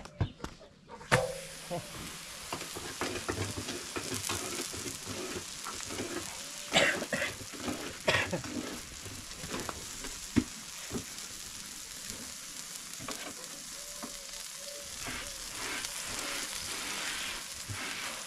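Sugared katmer flatbread sizzling steadily on a hot pan over a wood fire, the hiss starting about a second in after a sharp knock. A few more knocks and clicks of utensils or the pan come through the sizzle.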